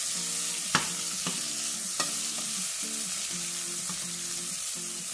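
Cubed potatoes and cauliflower sizzling in hot oil in a nonstick pan while a spoon stirs them, the spoon knocking against the pan about three times in the first half. Faint background music runs underneath.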